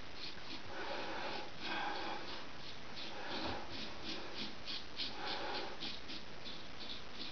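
Gold Dollar 66 straight razor scraping through stubble in quick short strokes, a crisp rasp about three or four times a second. Breathing through the nose can be heard now and then.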